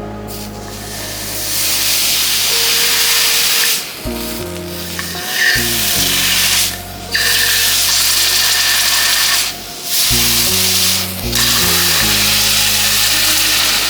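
A red-hot iron ball sizzling on ice, a loud steady steam hiss that cuts out abruptly for a moment four times. Background music with stepped bass notes plays underneath.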